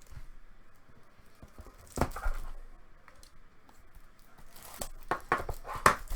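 Trading cards and their plastic holders being handled on a table: soft rustling and scraping, a knock about two seconds in, and a quick run of clicks and rustles near the end.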